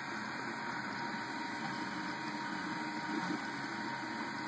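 Cerberus delta 3D printer running: a steady whir with a faint, steady high tone and no distinct knocks or clicks.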